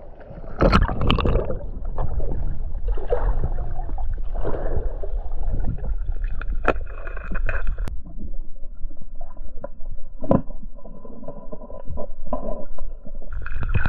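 Muffled underwater rumble and gurgling of moving stream water around the camera, broken by several sharp clicks and knocks.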